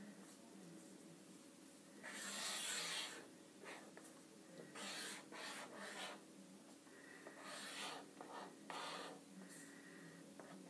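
Felt-tip marker strokes rasping across paper on a clipboard, in separate strokes of varying length. The longest and loudest comes about two seconds in and lasts about a second.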